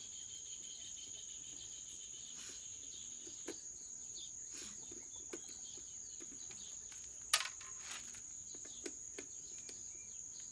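Crickets chirping in a steady high drone, with scattered small clicks and one sharp click about seven seconds in.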